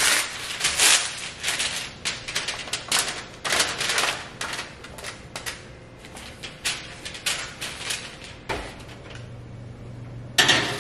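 A metal spoon clinking and scraping against a stainless steel mixing bowl as seasoned chickpeas are stirred and scraped out onto a baking sheet. A thud comes near the end, followed by a metallic clatter as the oven door opens and the tray goes in.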